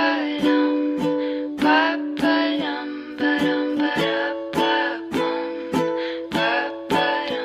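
Background music: an instrumental tune of plucked strings with a regular beat.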